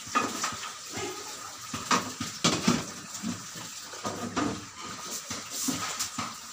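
Water splashing and sloshing in uneven bursts, with a few sharp clinks among them.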